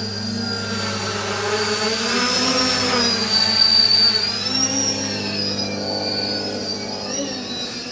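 Hexacopter's six brushless motors (Avroto 770kv) spinning 11x5 propellers in flight: a whirring drone of several pitches that waver up and down together as the throttle changes, loudest a few seconds in.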